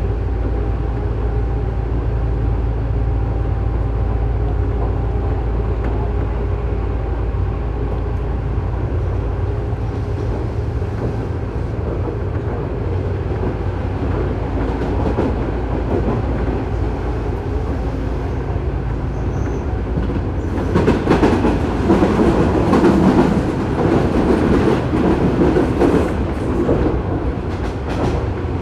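Running noise inside a Tobu 9000-series electric train car, heard from above its armature-chopper control gear, which in this car makes an abnormal noise. There is a steady low hum with thin chopper tones that fade about halfway through. Louder clattering of wheels on the track comes in about 21 seconds in and lasts several seconds.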